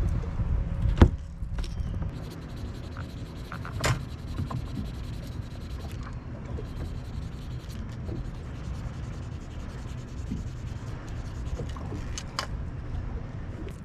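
Hands rubbing and handling small fishing tackle on a boat deck, with a sharp knock about a second in and a few lighter clicks later, over a steady low rumble.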